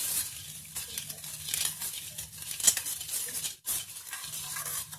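A metal spoon stirring granulated sugar into water in a stainless steel pan, scraping and clinking against the pan in quick, uneven strokes while the sugar dissolves.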